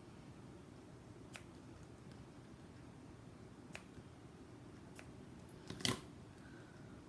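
Quiet handling of card and ribbon at a craft table: a few light clicks and taps, the loudest a short cluster of clicks about six seconds in.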